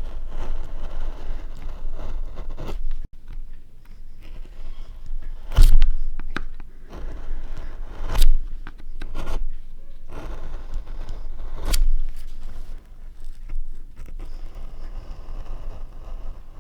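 Linocut gouge cutting into a linoleum block: repeated rough scraping strokes. Three sharp knocks break in partway through.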